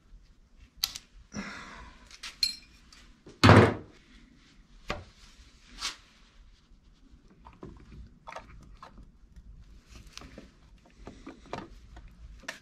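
Hand tools and metal engine parts being handled on an open motorcycle cylinder head: scattered clicks and light knocks, a short scrape about a second and a half in, and one heavy thunk about three and a half seconds in.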